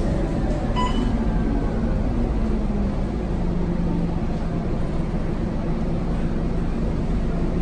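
Scania K230UB city bus heard from inside the cabin while driving: its five-cylinder diesel engine drones under road noise, with a low tone that slides down in pitch over the first few seconds and then holds steady. A brief high beep sounds about a second in.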